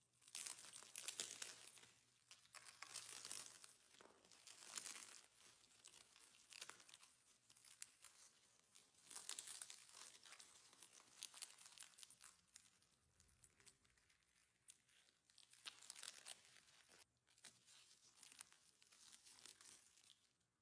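Faint crackling and crinkling in repeated bursts, each a second or two long, with fine clicks running through them.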